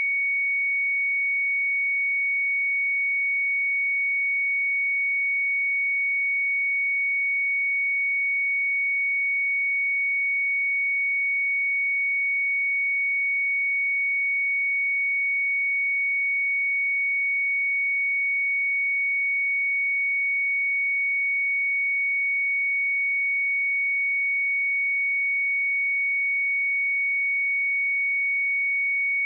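A pure 2232 Hz sine-wave test tone, one steady high-pitched note held at constant level.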